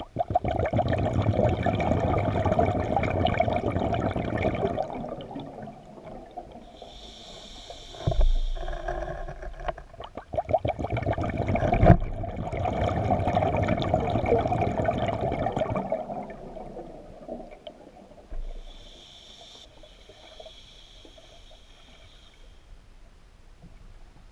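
Scuba diver's regulator breathing underwater: two long, loud bubbling exhales, each followed by a shorter hissing inhale through the regulator, then quieter near the end.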